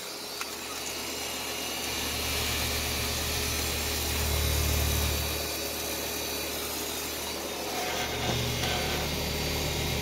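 1994 Bryant 661BJ two-ton heat pump running steadily in heating mode: the low hum of its Tecumseh reciprocating compressor under the even rush of the outdoor fan's air. The hum swells a little about halfway through.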